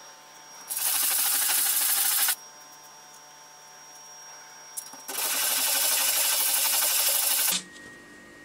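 A soft start module's metal face rubbed by hand on a sandpaper disc: two spells of sanding, about a second and a half and then two and a half seconds long, with a pause between.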